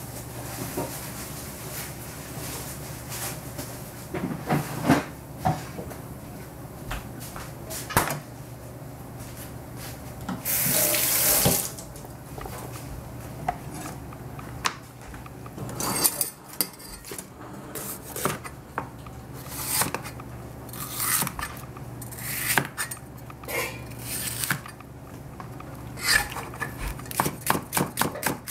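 A kitchen tap runs for about a second a little before the halfway point. Then a rectangular cleaver knocks on a plastic cutting board, slicing a red bell pepper with scattered strokes that become a fast, even run of chops near the end.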